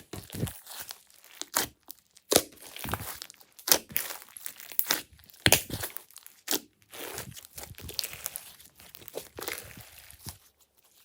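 Glossy slime being squished and stretched by hand, making irregular sticky pops and crackles.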